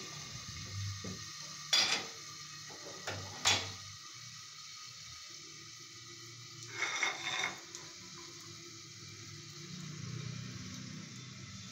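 Food sizzling faintly in a covered steel pan. There are two sharp metal-on-metal clinks, about two and three and a half seconds in, and a short rattling clatter of metal around seven seconds.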